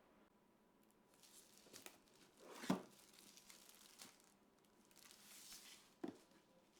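Faint handling noises: crinkling and rustling, with a sharp click about two and a half seconds in and another near the end.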